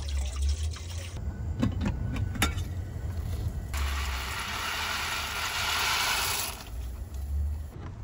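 Water glugging out of a plastic jug into a steel pot. About three and a half seconds in, dry macaroni is poured from its cardboard box into the pot of water for about three seconds, a dense rattling hiss. A low rumble runs underneath.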